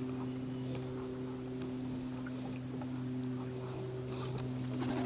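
A boat engine running steadily, a low even hum, with faint brief rustles now and then.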